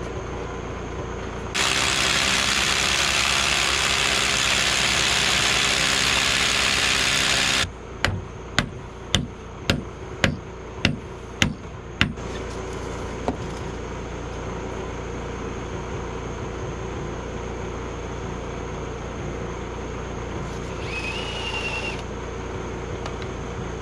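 DEWALT D25263K SDS hammer drill boring an anchor-bolt hole into a concrete slab, running for about six seconds and then stopping abruptly. Right after, eight sharp knocks in a steady rhythm about half a second apart, over a steady low hum.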